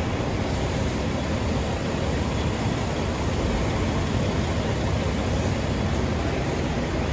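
Steady rumble and hiss of a running engine, even in level with no breaks.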